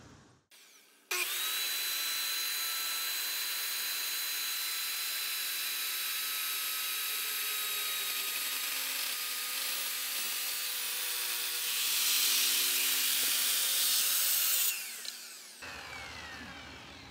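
Ridgid circular saw with a new 60-tooth Diablo blade cutting through 1.5-inch rubberwood butcher block: it starts about a second in and runs steadily with a high whine, grows louder near the end of the cut, then shuts off and spins down.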